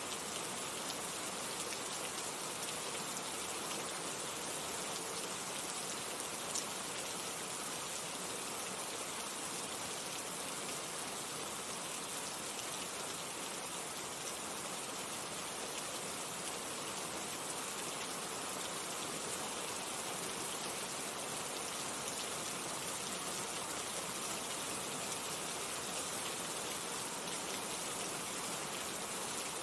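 Steady rain falling: an even, continuous hiss of drops, with one sharper tick about six seconds in.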